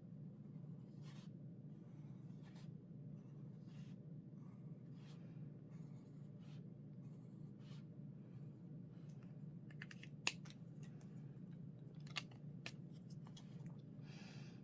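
Faber-Castell Pitt artist pens drawing on watercolour paper: faint, short scratchy strokes over a steady low hum, with a few sharp clicks about two-thirds of the way through.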